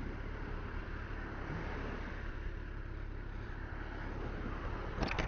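Steady vehicle running and road noise while driving along, a continuous low rumble with a brief knock about five seconds in.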